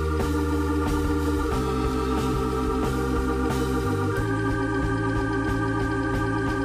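Background music of sustained held chords with a faint steady pulse; the chords change about a second and a half in and again about four seconds in.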